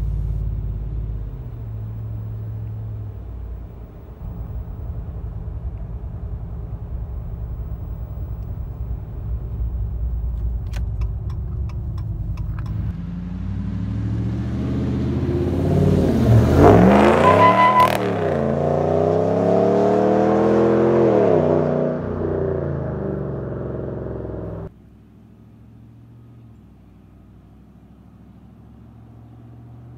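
2017 Ram 1500's 5.7-litre Hemi V8 through Carven Competitor mufflers: a low rumble at light throttle, then hard acceleration about halfway through, the revs climbing and falling back several times as it shifts up. The level drops abruptly near the end.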